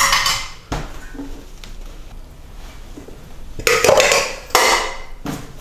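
Stainless steel bowls being handled and set down on a wooden countertop: a sharp knock at the start and another just after, then two louder bursts of metal clatter about four seconds in.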